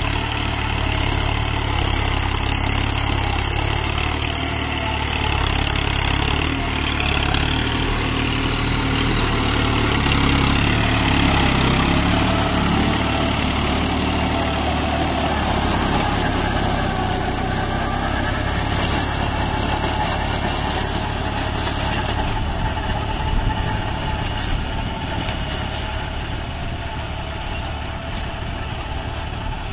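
New Holland tractor's diesel engine running steadily under load, driving a rotavator that churns through soil and sugarcane stubble; the sound eases off a little near the end as the tractor moves away.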